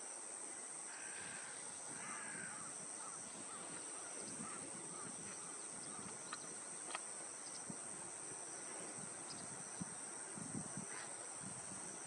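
Outdoor ambience with a steady high-pitched drone throughout. A few short bird calls come in the first couple of seconds, with scattered faint ticks later.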